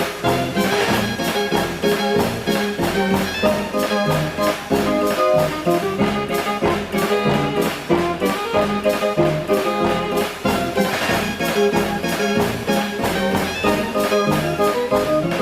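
105-key Decap dance organ playing a tune, its brass- and saxophone-like pipes sounding over a steady drum beat.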